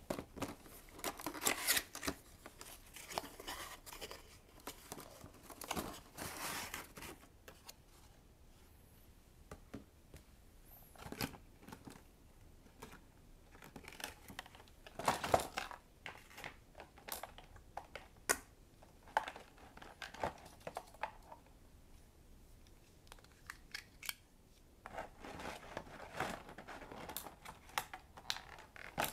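Cat-toy packaging being unpacked by hand: clear plastic cases and cardboard handled in irregular bursts of rustles and sharp clicks.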